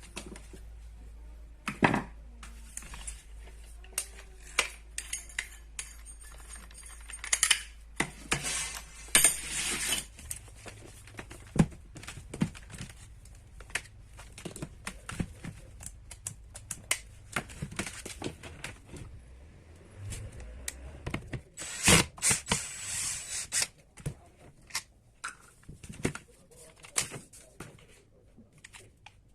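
Irregular clicks, clinks and clatter of small hard metal and plastic parts and tools being handled. There are two longer stretches of scraping and rustling, about 7 to 10 seconds in and again about 21 to 24 seconds in.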